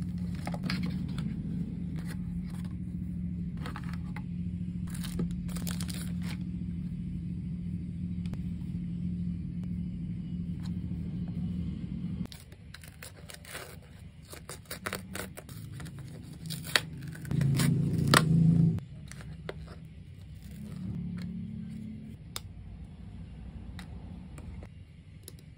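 Close handling sounds of a plastic pocket Wi-Fi router: crinkling plastic wrap, clicks and scrapes as the device is unwrapped, turned over and opened, and a SIM card is handled. A steady low hum underneath stops suddenly about halfway through, and a louder scrape comes about two-thirds of the way in.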